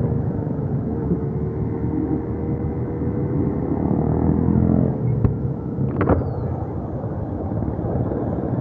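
Yamaha YTX 125 motorcycle's single-cylinder engine running steadily under way, mixed with steady road and wind noise. A couple of brief knocks about five and six seconds in.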